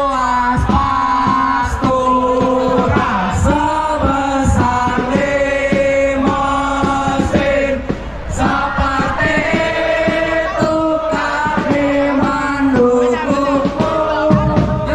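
Music: a song with a singing voice carrying a melody over a steady drum beat.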